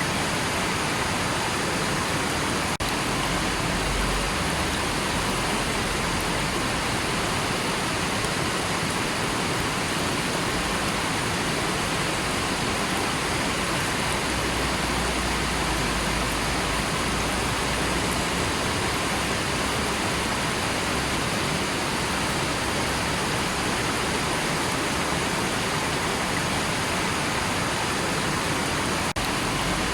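River water running, a steady, even rush that does not change.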